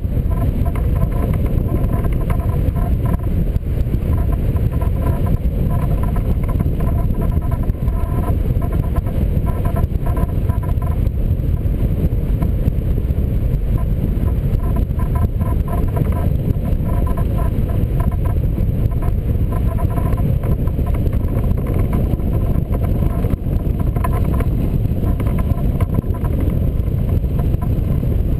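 Wind rushing over the microphone of a camera mounted on a hang glider in flight: a loud, steady, low rumble of buffeting air. A faint pulsing tone comes and goes in stretches over it.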